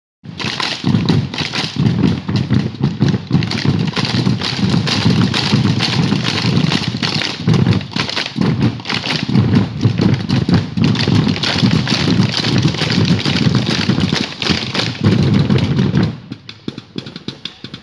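Many bombo legüero drums beaten together in a fast, driving rhythm: deep drumhead booms mixed with sharp clicking strokes. The drumming cuts off about sixteen seconds in, leaving only faint scattered taps.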